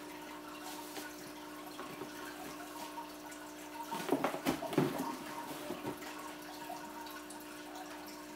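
Aquarium filter running with a steady hum and a trickle of water. About four seconds in, a cardboard shoebox lid is lifted and the contents handled, with a short burst of rustling and knocks.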